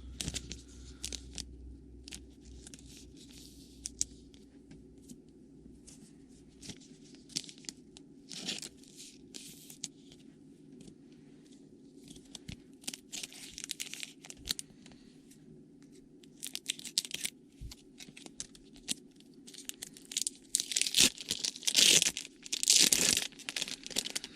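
A trading-card pack wrapper being crinkled and torn open, with short rustles and clicks of cards being handled. The loudest crinkling and tearing comes near the end.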